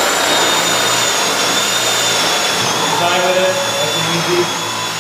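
Cordless drill running steadily with a high whine as a half-inch bit bores through plywood.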